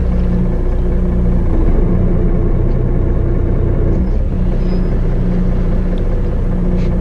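Fishing boat's engine running steadily with a low hum while its propeller churns the water alongside.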